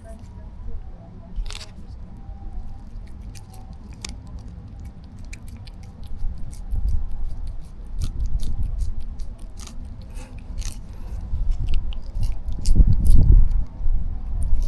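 A run of small, irregular clicks and crunches, with a low wind rumble on the microphone that grows louder near the end.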